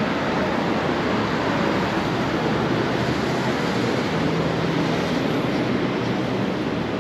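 Steady, dense rushing city ambience: traffic and outdoor noise with no single sound standing out.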